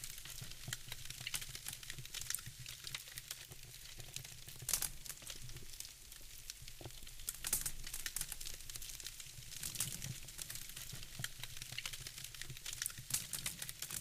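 Wood fire crackling in a fireplace: a continuous run of small crackles and snaps, with a few louder pops spread through, over a faint low rumble.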